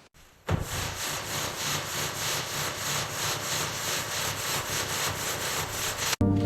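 Rhythmic abrasive rubbing against a surface. It starts suddenly about half a second in, pulses evenly, and cuts off abruptly near the end.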